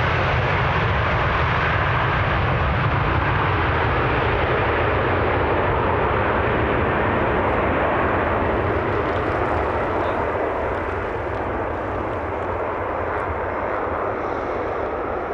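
Airbus A330's two jet engines running at takeoff power as the airliner accelerates down the runway, a loud, steady, deep roar. It eases off slightly about two-thirds of the way through as the aircraft draws away.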